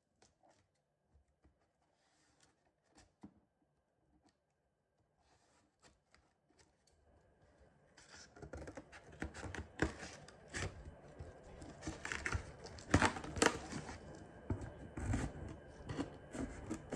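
Scissors slitting the packing tape along a cardboard box's seam. After faint scattered clicks, the blade drags along the tape from about halfway in, a dense crackle of small snips and rasping with a few sharper clicks.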